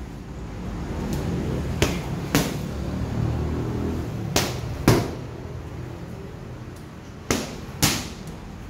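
Boxing gloves smacking a coach's focus mitts and body pad: six sharp hits in three quick pairs, each pair about half a second apart.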